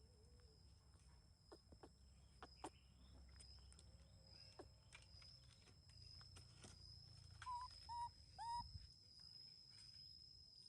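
Near silence with a steady faint high-pitched whine. About three-quarters of the way in come three short chirping animal calls in quick succession, the last one bending upward.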